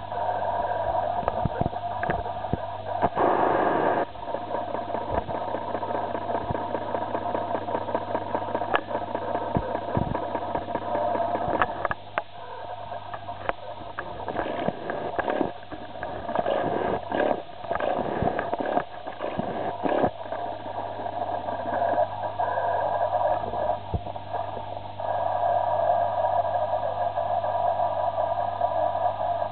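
Steady hum and rushing noise of running aquarium equipment, with a constant low drone and scattered short clicks and knocks.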